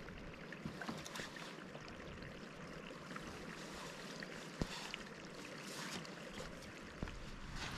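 Gently running water: a soft, steady hiss with small scattered drips and clicks, one sharper click about halfway through.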